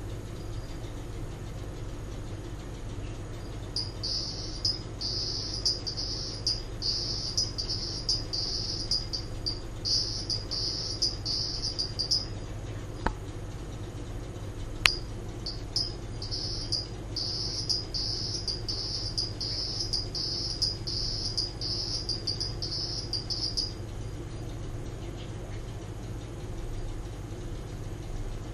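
Male Leptophryne borbonica (hourglass or cross toad) giving its mating call: high-pitched trills of rapid pulsed notes in two bouts of about eight seconds each, with a short pause between them. A steady low hum runs underneath, and a couple of sharp clicks fall in the pause.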